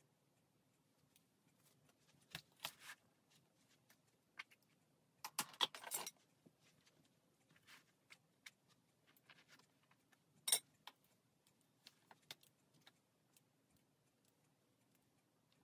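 Faint handling noises of a curly lace wig being pulled onto a canvas block head: soft rustles and small clicks, with a denser burst about five to six seconds in and a single sharp click about ten and a half seconds in.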